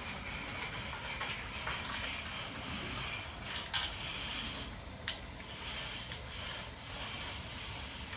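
Steel hand finishing tool scraping across a freshly poured concrete slab, working in a control joint, with two sharp metal clicks a little over a second apart near the middle.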